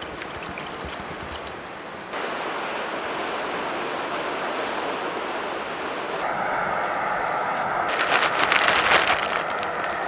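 Water poured from a plastic bottle into a cooking pot for about two seconds, then, after a cut, sea surf washing over rocks as a steady noise. Near the end comes a louder crackling stretch.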